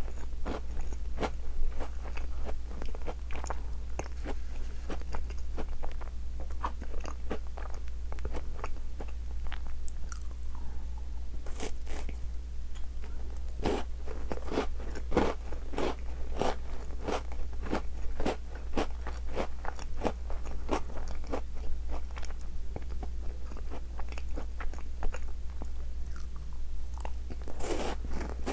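Close-up chewing and crunching of a chocolate-coated Tim Tam biscuit: a steady, irregular run of short, crisp crunches, a few of them louder.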